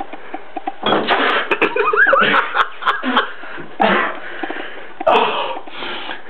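A man retching, coughing and spitting into a toilet in several harsh bouts, with a short strained vocal heave in the middle. He is gagging on a beer laced with an intensely spicy jalapeño that he could not keep down.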